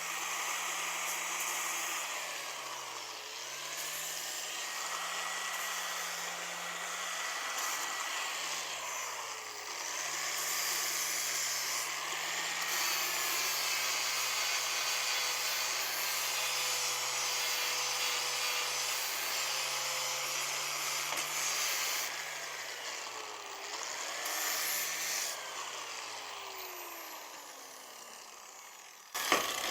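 Electric power tool working metal: the motor runs steadily and its pitch sags several times as it is loaded, then winds down near the end. A sharp click follows just before the end.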